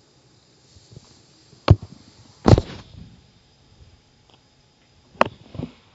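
A few sharp knocks and clacks: one about a second and a half in, a louder, longer one just after, and a quick pair near the end.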